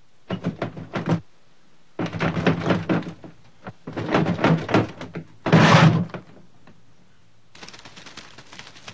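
Cartoon sound effects of banging and crashing: three bursts of rapid knocks and clatter, then a louder crash a little past halfway, with faint rattling near the end.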